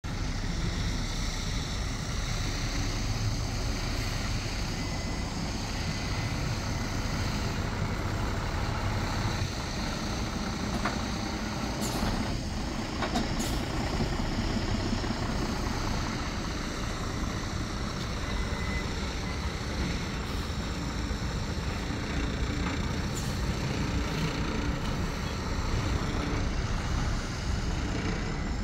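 Semi-truck tractor's diesel engine running steadily at low speed while manoeuvring a 40-foot container trailer. About halfway through come two brief sharp hissing sounds, typical of the truck's air brakes.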